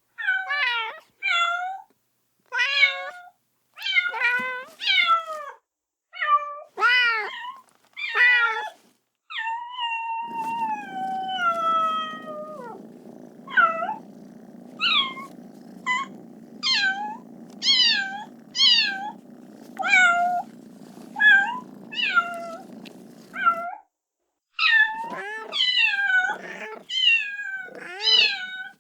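Kitten meowing over and over in short, high-pitched cries, about one a second, with one longer falling cry near the middle: a kitten crying for its mother. A low steady hum runs under the cries through the middle of the stretch.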